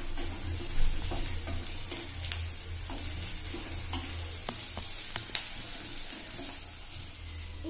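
Chopped onions sizzling in hot oil in a clay pot while a spatula stirs them. There is a steady sizzle, with scattered light scrapes and clicks of the spatula against the pot.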